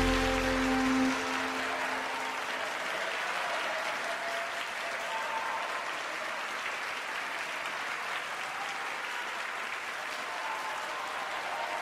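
Audience applauding steadily, while the last held notes of the music fade out in the first second or two.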